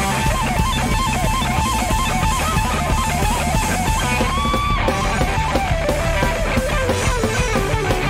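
Live rock band playing: a lead electric guitar line with string bends and a long held note a little past four seconds in, over bass guitar and a drum kit.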